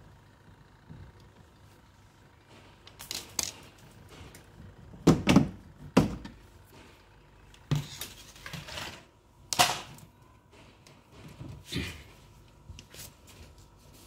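Plastic cover panel of a twin-tub washing machine being unscrewed and lifted off: a series of sharp plastic knocks and clunks, with a screwdriver rattling against the casing.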